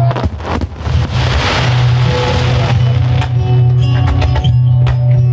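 Fireworks show music playing loud, with firework shells bursting in sharp bangs over it: a cluster in the first half-second and a few single bangs later. A broad rushing hiss fills the second and third seconds.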